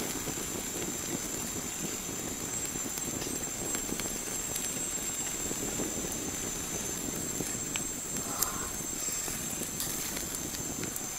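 Open fire burning under skewered chicken wings on a grill: a steady low rush of flames with a few sparse crackles and pops.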